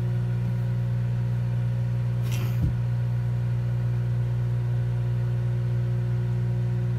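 Microwave oven running with a steady low hum while it heats a plate of marshmallows. A brief noise comes about two and a half seconds in.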